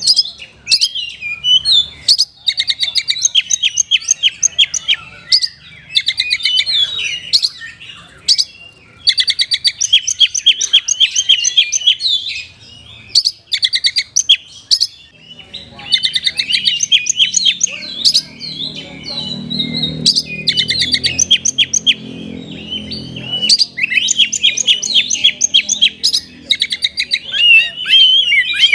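Oriental magpie-robin singing a loud, varied song of rapid trilled and warbled phrases, broken by short pauses every few seconds.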